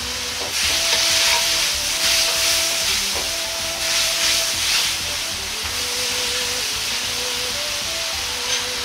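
Julienned carrots sizzling in a hot wok as a metal ladle stirs them through their seasoning liquid. The sizzle comes in several loud surges, one with each stir, over the first five seconds, then settles to a lower steady sizzle.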